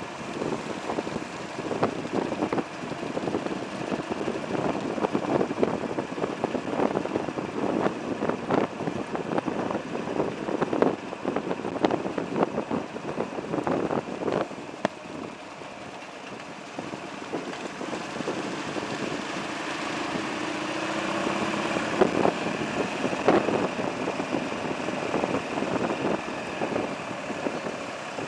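Buell XB9SX's air-cooled V-twin running at low speed behind a slow truck, heard from a camera clamped to the handlebars, with wind on the microphone. Many sharp knocks and rattles come through the first half. In the second half the engine note steadies, its pitch rising and falling with the throttle.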